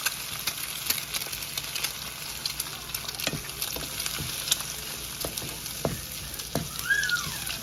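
Egg frying in a pan, with a steady sizzle and crackle over a low, even hum.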